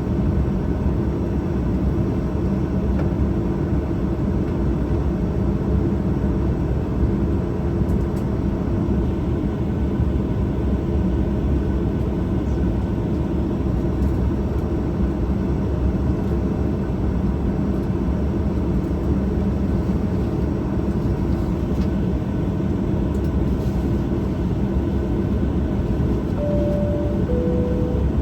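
Steady engine and airflow noise of a Boeing 737-800 with CFM56-7B engines, heard inside the passenger cabin. Near the end a two-tone, high-then-low cabin chime sounds once.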